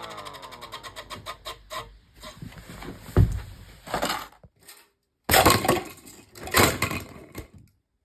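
A 3D-printed 8/12-port air-raid siren spinning down. Its falling tone fades out at the start, while a rapid ticking from the slowing rotor gets slower and stops within about two seconds. Then come irregular knocks and rustling handling noises, with a sharp thump about three seconds in.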